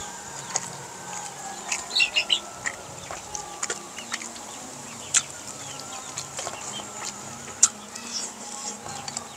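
Chickens clucking in the background, with scattered sharp clicks and taps from eating at steel bowls; the loudest click comes near the end.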